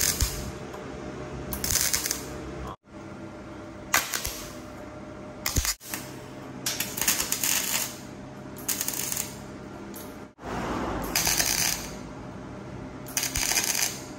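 Stick (arc) welder laying short tack welds on steel: about eight brief bursts of crackling arc sizzle, each under a second, over a steady low hum.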